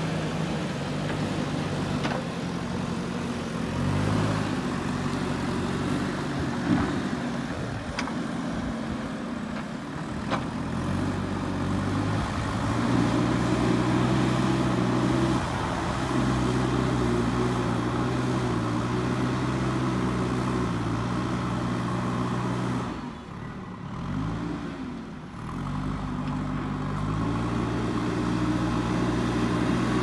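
JCB 3DX backhoe loader's diesel engine running as the machine drives and works the loader bucket on loose soil. The engine note steps up and gets louder about twelve seconds in. Near the end it drops away for a couple of seconds, wavers, then climbs back up.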